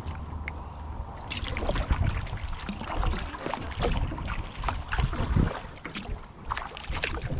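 Kayak paddle strokes: the blade dipping and pulling through the water, with water trickling and splashing off the paddle, about one stroke a second.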